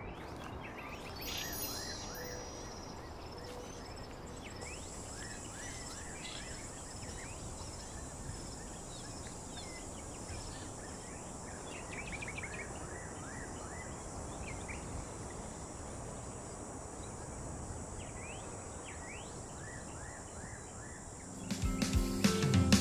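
Countryside ambience: scattered short bird chirps and calls over a steady low rushing noise, joined about a fifth of the way in by a high steady insect drone. Guitar music comes in near the end.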